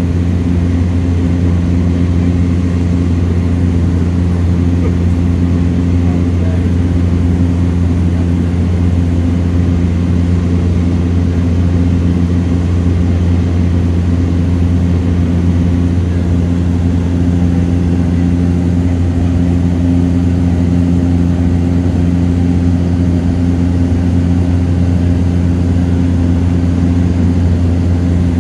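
Cabin noise of a Cessna Caravan in flight: its single PT6A turboprop engine and propeller make a steady, loud, low drone with several steady humming tones above it.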